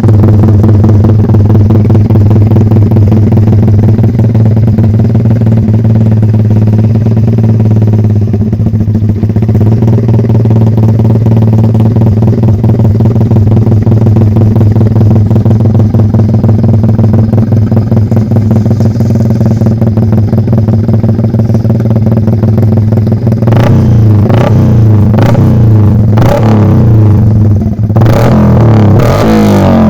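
Motorcycle with an aftermarket racing exhaust running loudly and steadily, then revved in a series of quick, sharp blips over the last several seconds.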